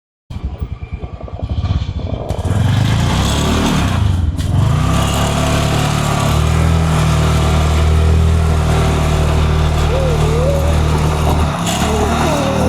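Motor vehicle engine running, with separate firing pulses for the first couple of seconds, then settling into a steady drone.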